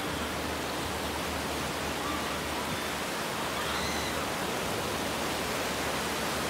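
Ocean surf breaking and washing over a shallow sandy beach, a steady rush of waves.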